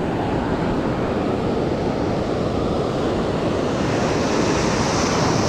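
Ocean surf breaking and washing over a shallow reef, with wind buffeting the microphone; the wash swells a little near the end.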